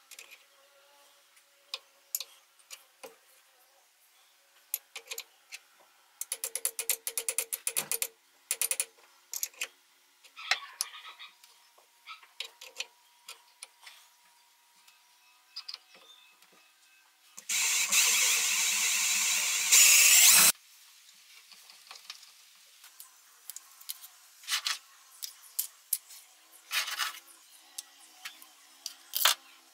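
Hand work on metal machine parts: scattered clicks and taps, with a run of rapid ratchet-like clicking about six seconds in. Past the middle comes a loud, steady rushing sound lasting about three seconds, then it cuts off suddenly.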